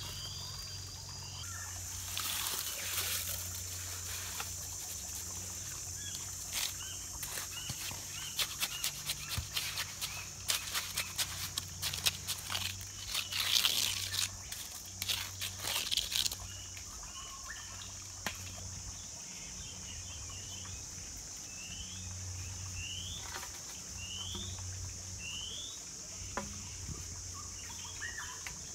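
Wet cement mortar scraped and patted with a flat blade on a mortar column, a dense run of quick scrapes and clicks in the first half. Behind it, insects buzz steadily at a high pitch, and a few short rising chirps come later on.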